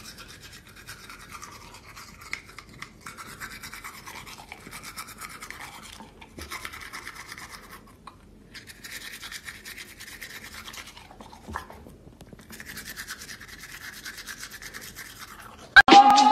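A manual toothbrush scrubbing a dog's teeth in stretches of rapid strokes, with short pauses between them. Just before the end, a loud, upward-sliding tone starts.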